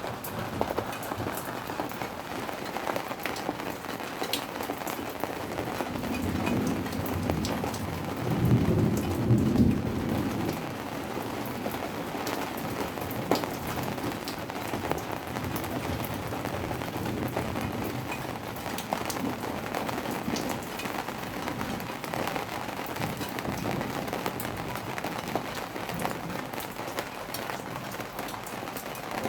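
Steady rain falling, a dense patter of drops, with a low rumble of thunder that swells and fades about a quarter of the way through.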